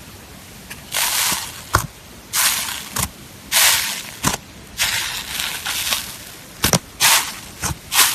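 Sponge slime being squeezed and pressed by hand: repeated crackling, squishing bursts, each about half a second to a second long, with a few sharp pops in between.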